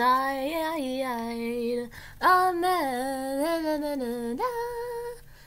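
A woman singing unaccompanied, a short made-up tune on the words "stuff on the inside", in long held notes that step up and down. She sings it in two phrases with a brief break about two seconds in, then ends on a held note near the end; by her own account she is only half-trying.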